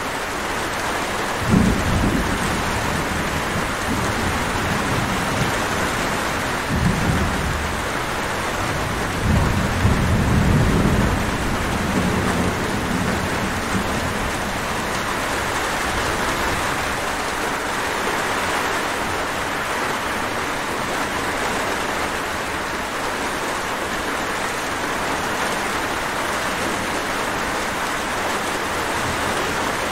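Steady heavy rain, with low rumbles of thunder: short ones about two seconds in and around seven seconds, and a longer rolling one from about nine to thirteen seconds.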